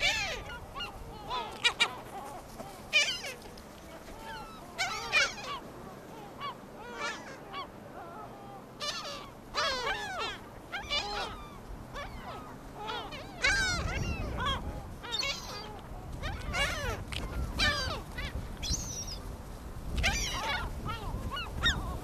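Gulls calling over and over, many overlapping cries, some in quick runs. A low rumble comes in about halfway through.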